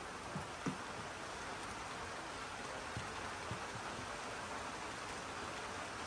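Steady rain falling: an even hiss with a few faint ticks.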